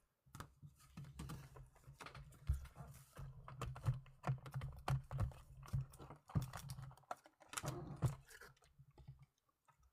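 Irregular clicks and taps of trading cards and plastic card holders being handled on a tabletop, with a low rumble of handling noise under them.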